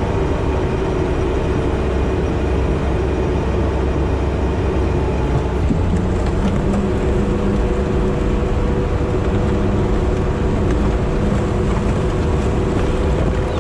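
Sherp amphibious ATV's diesel engine running steadily, heard from inside the cab as a loud, even drone.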